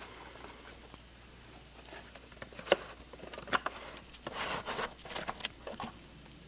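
A VHS cassette and its case being handled and the tape taken out: a few sharp plastic clicks and knocks, the loudest about three seconds in, with scraping and rustling from about four to five and a half seconds in.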